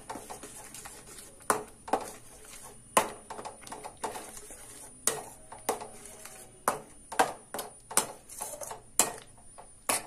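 Metal slotted spoon stirring a thick gravy in a stainless steel kadai, scraping the pan and clinking against its sides in about a dozen irregular knocks.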